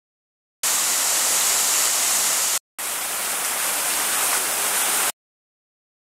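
Water from fountain jets and a stepped cascade rushing and splashing as a steady hiss, in two stretches that start and stop abruptly: one from about half a second in, the second slightly quieter after a brief gap, cutting off about a second before the end.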